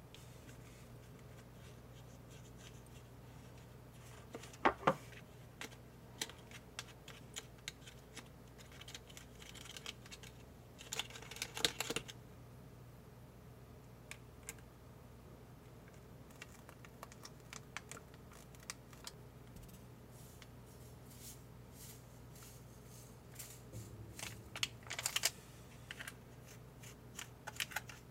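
Scattered light clicks, taps and short scrapes of a pink plastic spoon against a thin plastic Popin Cookin candy tray while packets are emptied, water is added and powder is mixed. A faint steady low hum lies underneath.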